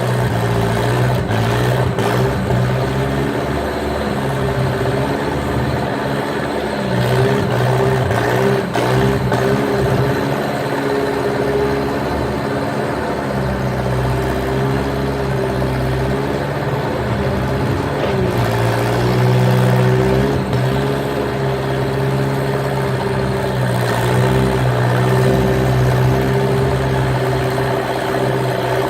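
Skid steer's engine running steadily under load, its pitch dipping and rising now and then as the machine works, with a few short clunks.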